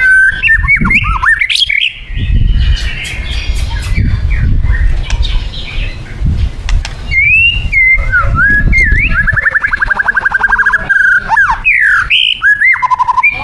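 White-rumped shama singing: loud whistled notes and rising and falling slurs, a patch of sharp clicks, and a long rapid trill in the second half, over a low rumble.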